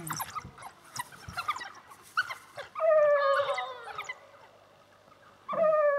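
African wild dogs calling during a territorial encounter: a scatter of short, high chirps and yelps, then two drawn-out whining calls that fall slightly in pitch, one about three seconds in and a shorter one near the end.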